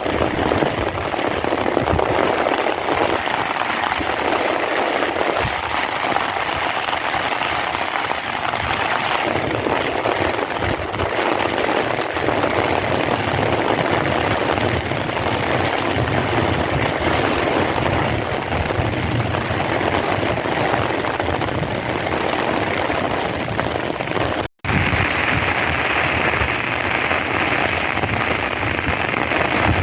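Heavy monsoon downpour, a steady dense hiss of rain falling and splashing. About 25 seconds in the sound drops out for a moment, then the rain resumes with a higher, brighter hiss.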